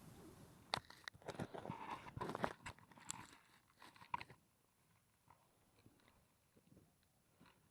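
A quick run of small clicks and crunches, like handling close to the microphone, lasting about three and a half seconds before it goes almost quiet.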